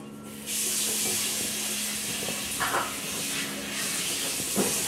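A steady hiss, like running water or sizzling, starts abruptly about half a second in, with two short knocks over it.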